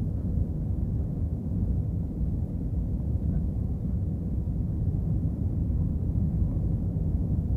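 Steady low rumble of an Airbus A321 airliner heard from inside the passenger cabin over the wing: engine noise and airflow during the descent on approach to land.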